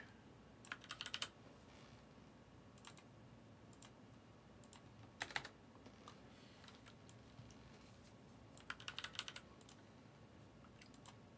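Faint computer keyboard typing: a few short runs of keystrokes, with a denser run near the end, and near silence between them.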